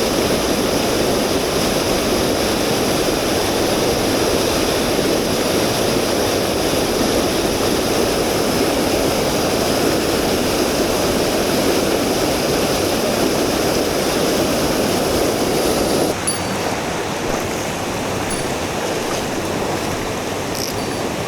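Mountain stream water rushing steadily over rocks. About sixteen seconds in, the rush drops a little quieter with a faint click.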